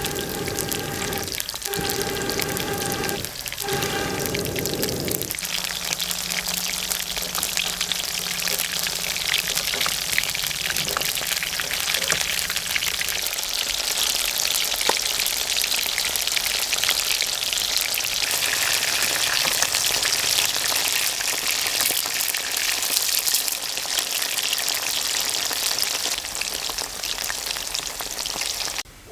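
Chicken pieces deep-frying in hot oil, a dense, steady sizzle that cuts off suddenly near the end. The first few seconds carry a steady hum-like tone, broken twice, under the sizzle.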